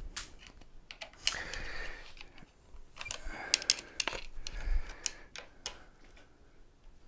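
Irregular sharp clicks and light knocks of hands working on the tiller and plastic parts of a Pride Go-Go folding mobility scooter, with a cluster of quick clicks a few seconds in.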